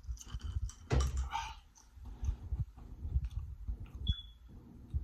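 Close-miked chewing and mouth smacking of a person eating seafood boil, with irregular soft thuds and scattered wet clicks.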